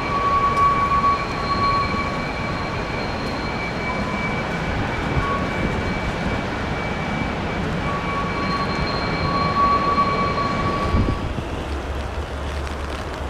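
Airbus A330-200 jet engines running on the landing rollout on a wet runway: a steady rushing noise with a steady high whine. About eleven seconds in, it gives way to a low rumble of wind on the microphone.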